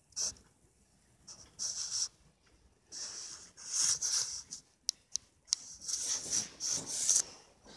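Scratchy rubbing noise in a series of short bursts, about half a second each, with a few sharp clicks about five seconds in.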